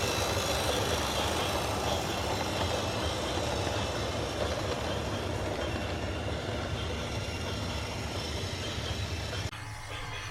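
Train running past, a steady rumble of wheels and cars that slowly fades. It cuts off abruptly near the end.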